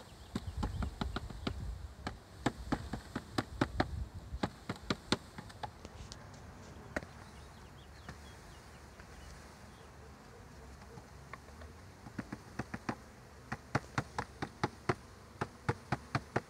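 Wooden bee package knocked and jolted repeatedly against the hive to shake the bees out, in two runs of quick sharp knocks, the first with dull thumps, and a pause between. Honey bees buzz throughout.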